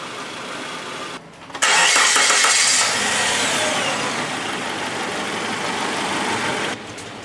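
Suzuki car engine running, then a little over a second in it turns sharply louder. The louder sound fades slowly with a falling pitch over several seconds, like revs flaring and settling, and drops back to a quieter run near the end.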